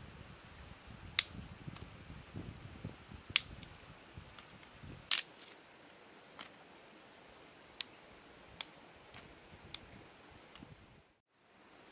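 Dry wooden sticks knocking against each other and the stones as they are laid one at a time over a stone hearth. There are a few sharp clacks, the three loudest in the first half, then lighter ticks, over low rustling that fades out about halfway through.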